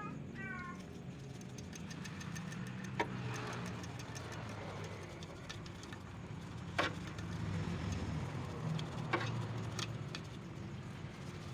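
Steady low hum with a few sharp metallic clicks and taps, spread out over several seconds, as steel wool and fingers work around the valve springs of a cylinder head.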